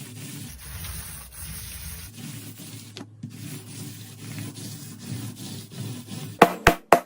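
Steady rubbing or scraping noise, like something being worked over a surface. Near the end it gives way to a few sharp, loud clicks.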